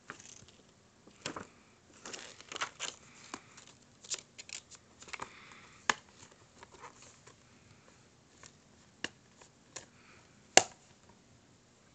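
Plastic DVD cases being handled and set down on carpet: irregular clicks, taps and rustling, with one sharp click near the end the loudest.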